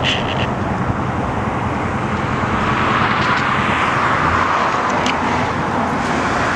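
Steady motor-vehicle traffic noise, swelling about three to five seconds in as a vehicle passes.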